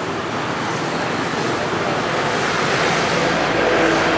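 Steady rushing outdoor noise of wind and road traffic, growing slightly louder near the end.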